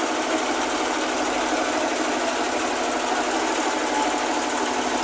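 Fishing boat's engine running steadily with a fast, even clatter.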